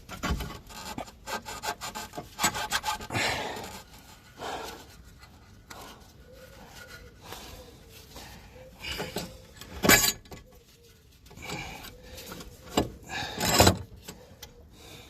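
Hand tools scraping and clinking on the car's lower ball joint and suspension arm, with a few sharp knocks, the loudest about ten seconds in and another near the end.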